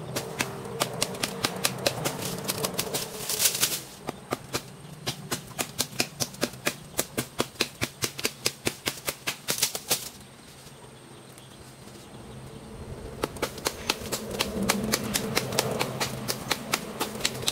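Hand saw cutting into a lychee branch in quick, even back-and-forth strokes, about three a second. It stops for a few seconds a little past the middle, then the sawing starts again.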